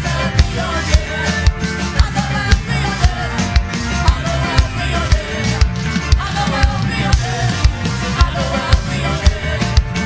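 Live worship band music, with a drum kit keeping a steady beat of about two strong hits a second under bass and melodic lines.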